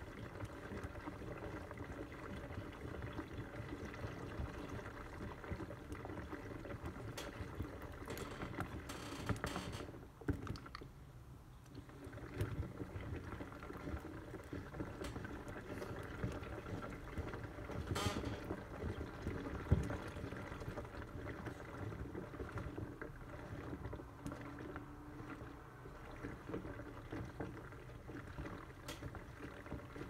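Homemade cardboard toy washing machine, a model of the Indesit WIUL103, on its rinse: water sloshing in the turning drum over a steady hum. The level drops briefly about ten seconds in, and there is a sharp click a little past halfway.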